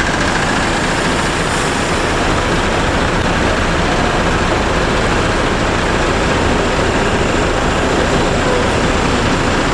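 Steady, loud motor vehicle noise: engine and road noise that runs evenly, with no horn or other distinct event standing out.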